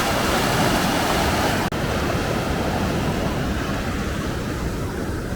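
Mountain creek running high and fast: a steady rush of water, with a momentary break a little under two seconds in.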